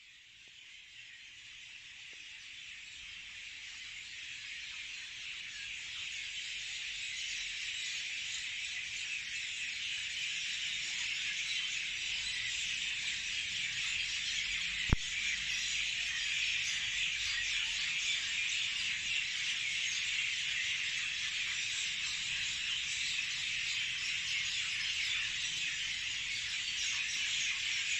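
Dense, steady chorus of chirping insects, fading in over the first several seconds and then holding level. A single sharp click comes about halfway through.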